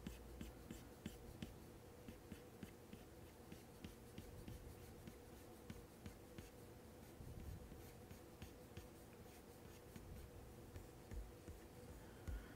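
Faint, quick taps and short scratches of an Apple Pencil tip on an iPad Pro's matte screen protector as fine hair strokes are drawn, several a second, over a faint steady hum.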